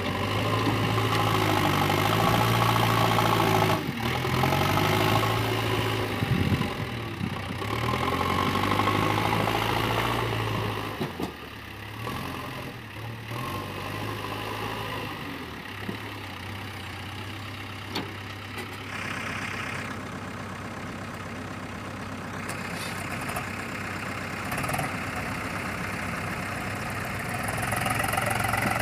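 Diesel engine of a JCB 3DX backhoe loader working while it loads sand. For the first ten seconds or so it is louder and rises and falls in pitch, then it settles to a quieter, steadier run.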